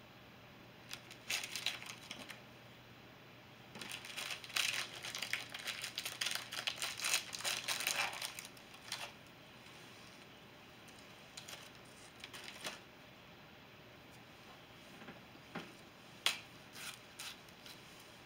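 Crinkling of a foil-lined cookie packet as cookies are taken out: a short burst about a second in, a longer dense stretch from about four seconds to nine, then a few scattered light clicks and rustles.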